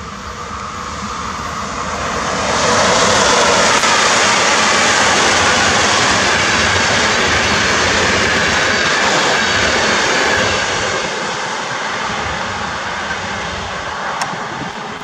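Locomotive-hauled passenger train passing on electrified main line: a steady rush of wheels on rails as the coaches go by, loudest from about two and a half seconds in and fading after about ten seconds as the train draws away.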